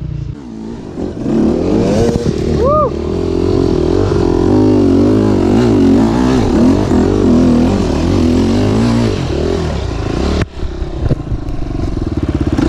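Enduro motorcycle engine revving hard under load on a steep rocky climb, its pitch rising and falling with the throttle. About ten and a half seconds in the sound drops out for an instant, then the engine picks up again and runs more evenly.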